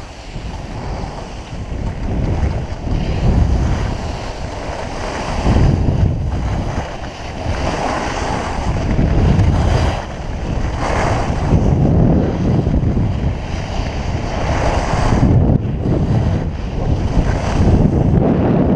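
Wind rushing over a GoPro Hero 3+ microphone during a downhill ski run, mixed with skis scraping over icy, granular snow. The noise swells and eases every couple of seconds.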